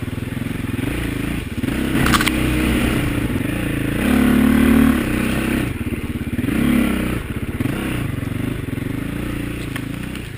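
Dirt bike engine working at low speed on a rough trail, the revs rising and falling and loudest about four to five seconds in. A brief clatter about two seconds in.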